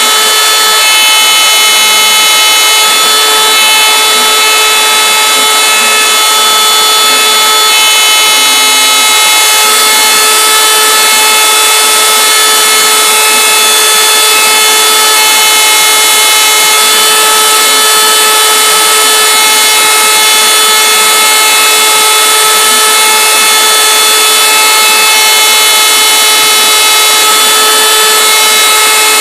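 DIY CNC router engraving lettering into a wooden board: the router spindle runs with a loud, steady high-pitched whine over the constant hiss of the bit cutting the wood.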